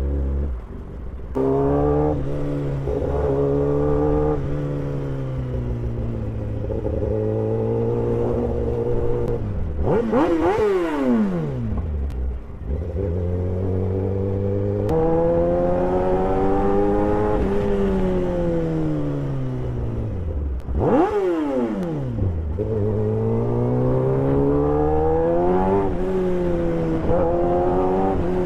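Kawasaki ZX-10R superbike's inline-four engine heard from the saddle while riding, its note rising as it accelerates and stepping down at gear changes. Twice, about ten and twenty-one seconds in, the pitch drops steeply before climbing again.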